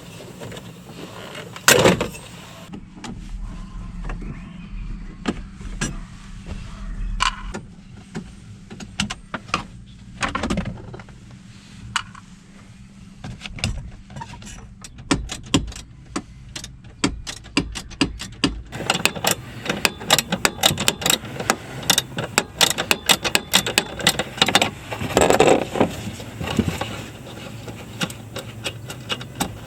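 Hand tools working loose the dash fasteners: scattered metallic clicks and clinks with a sharp knock about two seconds in, then a long run of fast ratchet clicking in the second half, over a steady low hum.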